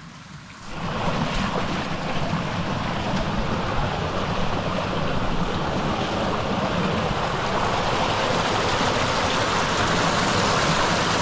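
Rushing water of a creek waterfall, a steady hiss that comes in suddenly and loud about a second in and swells a little toward the end.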